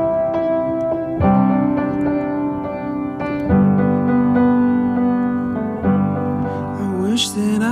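Background music: piano chords struck about every two seconds, with a sliding voice entering near the end.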